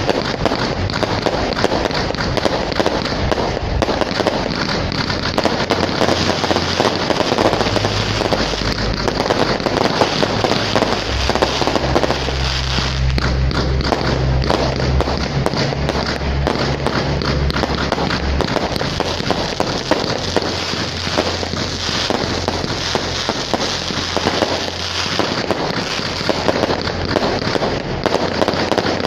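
Fireworks display: a dense, continuous barrage of aerial shell bursts and crackling.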